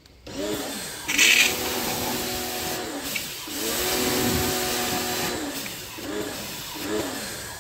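DYLECT Ultra Flow Plus 1900 W electric pressure washer's motor starting up and running in spells. It spins up, runs steadily and winds down twice, then gives two short blips near the end. A brief loud hiss of spray comes about a second in.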